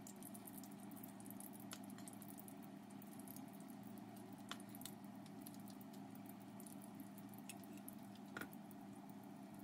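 Vegetable pakoras deep-frying in hot oil in a wok: a faint sizzle with many small scattered crackles and pops, over a steady low hum.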